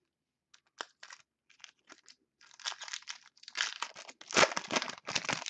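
Foil wrapper of a football trading-card pack being handled, crinkled and torn open by hand: scattered short rustles at first, then a denser stretch, loudest about four seconds in.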